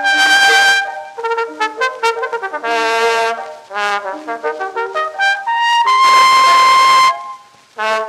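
Solo cornet playing a fast polka from a 1903 recording: quick runs of notes broken by three long held notes, the longest about a second near the end.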